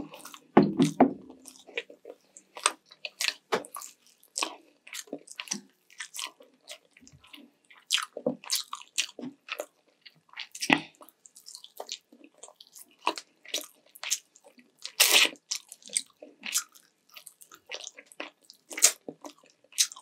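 Close-miked chewing and biting of sweet and sour chicken legs and rice: many short, irregular wet mouth sounds, with one longer, louder one about fifteen seconds in.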